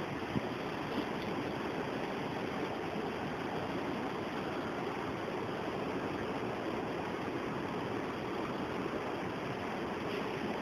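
Steady hiss of marinated chicken pieces sizzling over glowing charcoal on a wire-mesh grill.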